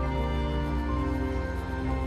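Background music with held notes over a steady bass, changing note about every second.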